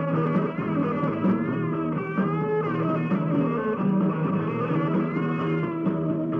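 Rock music with guitar, its notes bending up and down, played from a 1969 AFVN radio broadcast tape. It sounds thin, with no high end.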